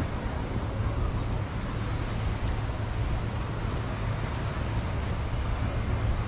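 Wind buffeting the microphone, a steady low rumble over a constant hiss of surf.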